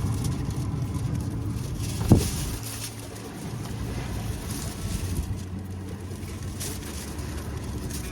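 A steady low rumble, with a single loud thump about two seconds in that rings briefly.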